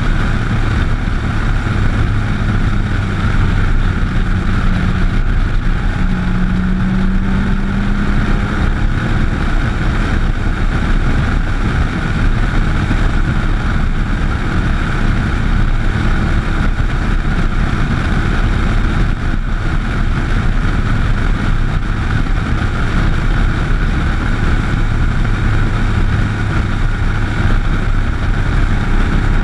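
Motorcycle cruising at road speed: a steady rush of wind over the bike-mounted camera mixed with the engine's low hum. The engine note rises briefly a few seconds in.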